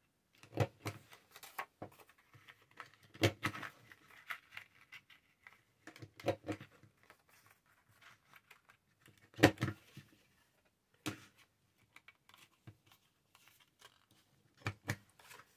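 Paper being handled, with several separate sharp clicks and crunches of a handheld corner rounder punch cutting the corners of the paper.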